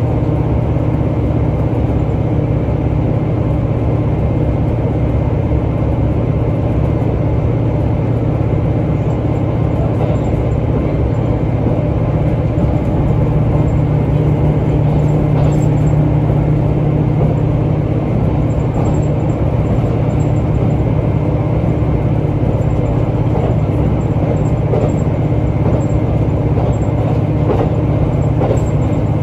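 KiHa 75 diesel railcar running, heard from inside the passenger cabin: a steady, loud drone of engine and running gear.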